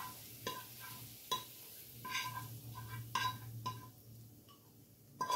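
A frying pan knocking and scraping against a ceramic bowl as sauced nuggets are tipped out of it: a string of light clinks, several with a brief ring.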